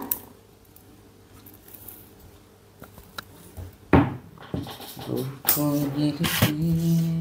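A few faint taps and a sharp click about four seconds in, then a man's voice humming a few held notes that step in pitch.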